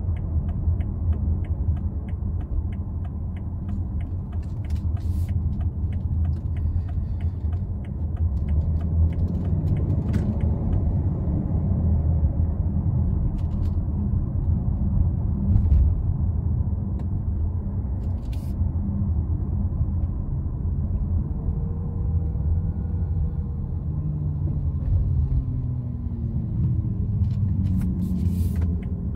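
Inside the cabin of a BMW X3 xDrive30d (G01) on the move: a steady low rumble from its 3.0-litre inline-six diesel and the tyres. A fast ticking runs through the first few seconds, and near the end another engine's note rises and falls.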